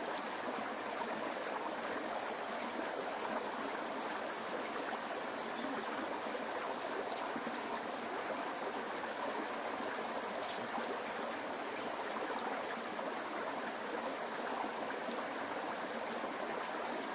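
Steady, even rushing noise like flowing water, with no pitch, rhythm or separate events.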